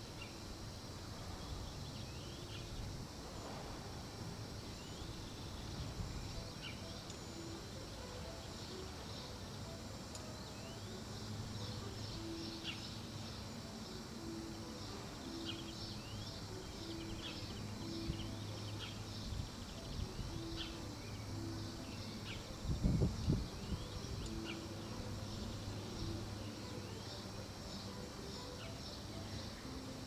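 Summer meadow ambience: birds chirping repeatedly over a steady high buzz of insects, with a short low rumble about two-thirds of the way in.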